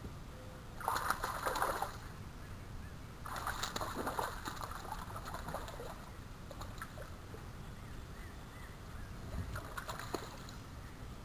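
A hooked catfish splashing at the water's surface as it is reeled in: a burst about a second in, a longer one from about three to five seconds, and a smaller splash near the end.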